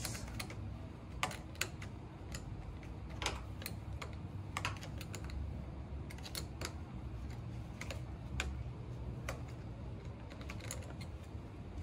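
Chrome vanadium steel combination wrench clicking against a car battery terminal nut as it is loosened to disconnect the battery: a string of irregular light clicks, a few seconds apart, over a low steady hum.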